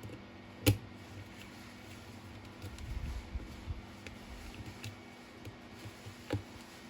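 Hands working on a small e-bike twist-throttle unit: a sharp click about a second in, soft handling rumbles and small taps through the middle, and a second click near the end, over a faint steady hum.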